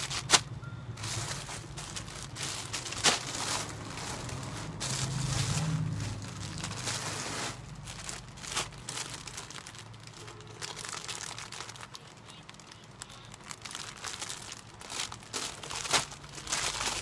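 Clear plastic bags of packaged clothes crinkling and rustling as they are handled, with irregular sharp crackles.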